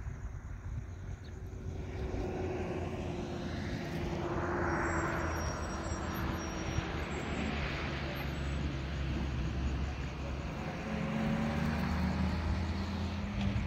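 An engine running steadily, its low hum growing stronger in the second half.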